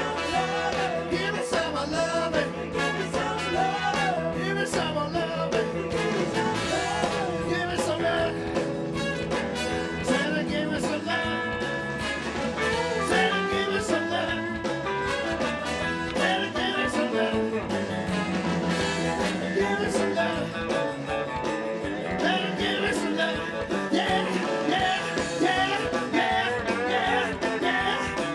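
Live rock-and-blues band playing, with electric guitar and some singing over a steady beat.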